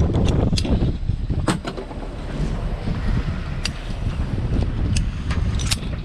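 Wind buffeting the microphone in a low, rough rumble, with a series of short, sharp metallic clicks and clinks from the snap hook of a sailing safety tether being handled at the harness ring.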